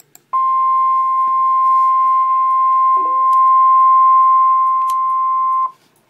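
Emergency Alert System warning alarm tone for a flash flood warning: a single steady high beep, the National Weather Service's 1050 Hz tone, held for about five and a half seconds before cutting off.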